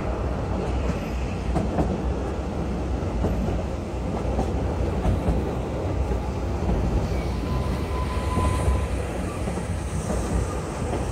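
Narrow-gauge Welsh Highland Railway train running on the line: a steady rumble with scattered faint clicks from the wheels on the track.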